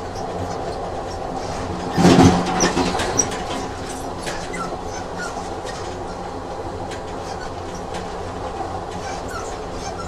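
Dubbed train sound effect: a train running on rails, a steady rumble with a low hum. There is a loud knock about two seconds in and a few short high squeaks from the wheels.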